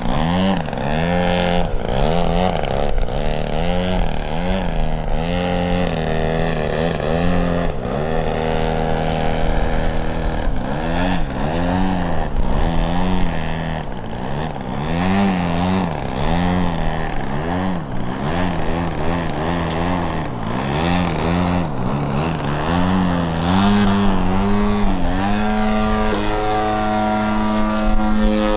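3D aerobatic RC model airplane's motor and propeller, hanging on the prop: the pitch swoops up and down in quick throttle bursts again and again to hold the hover. Near the end it settles into a steady high pitch at full throttle as the plane climbs away.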